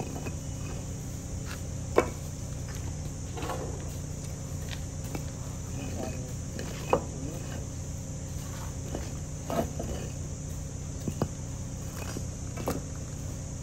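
Brick knocked against a brick wedged under the edge of a concrete manhole cover slab: a handful of sharp, separate taps several seconds apart, driving the shim in to seat the slab. Steady insect drone in the background.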